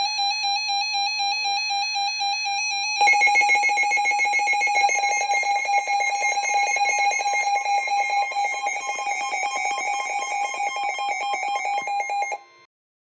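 Electronic emergency-alert alarm tones. A steady shrill electronic alarm tone is joined about three seconds in by a louder, rapidly pulsing alarm tone, and both cut off abruptly near the end, just before the next weather warning is read.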